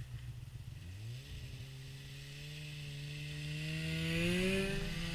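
Snowmobile engine running. Its pitch climbs about a second in as the sled accelerates and keeps rising as it approaches. It is loudest as the sled passes close, about four seconds in, and the pitch dips slightly as it goes by.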